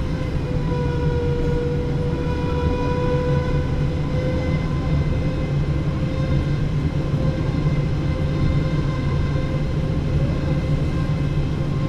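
Cabin sound of a Boeing 777-300 airliner taxiing after landing: a steady low rumble with a held jet-engine whine over it, wavering slightly in pitch.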